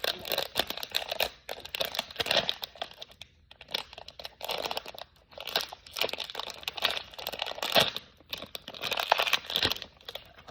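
Crinkly packaging being torn open and crumpled by hand to free a small toy figure, in several spells of crackling with short pauses between them.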